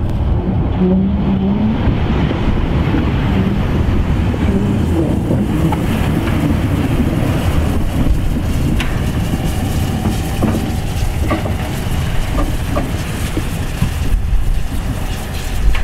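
Harz narrow-gauge 2-10-2 tank steam locomotive running light along the station track, a steady heavy rumble and hiss with a few sharp clanks through the middle.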